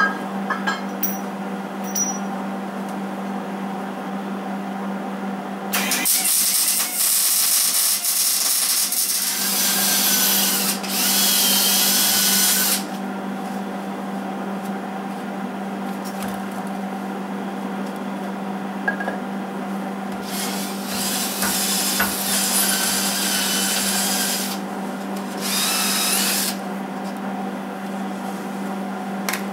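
Hobart 110-volt MIG welder laying several short welds: bursts of crackling arc sizzle, each one to four seconds long and each starting and stopping abruptly, over a steady hum.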